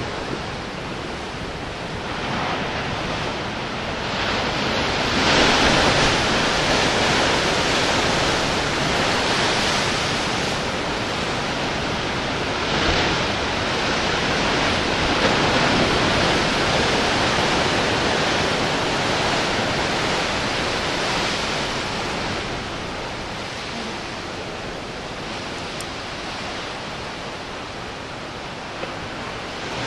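Ocean surf breaking and washing ashore: a continuous rush of water that swells and eases, loudest about five seconds in and again around the middle.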